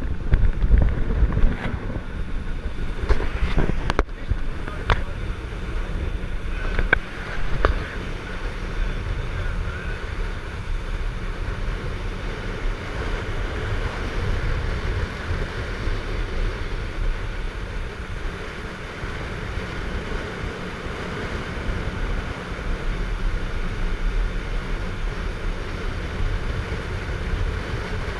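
Motorboat under way, its engine running steadily with water rushing past the hull and wind buffeting the microphone. A few sharp knocks come in the first eight seconds.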